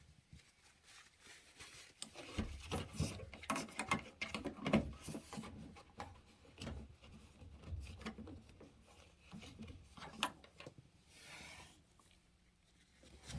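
Irregular rubbing and scraping with small knocks as a washing machine's drain-pump filter and its housing are wiped clean with a paper towel. It is busiest in the first half, with a brief rustling hiss near the end.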